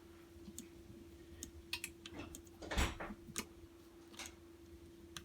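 Faint, irregular small clicks and ticks of a Torx bit and small wrench turning a screw out of a Leatherman Charge multi-tool, with a louder handling knock about halfway through. A steady low hum runs underneath.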